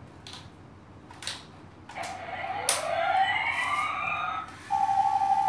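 Battery-powered toy robot's electronic sound effects through its small speaker: after two light clicks, siren-like rising sweeps start about two seconds in, then give way near the end to a steady high beep.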